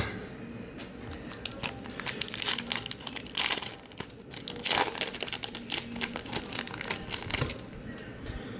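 Plastic wrapper of a 2015 Prizm football card pack crinkling and tearing as it is opened, in a run of short crackles with a few louder bursts.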